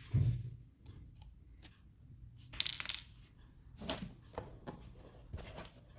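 Small screws and a screwdriver being handled while screws are taken out: scattered light clicks and ticks, with a short scrape about two and a half seconds in and a sharper click near four seconds.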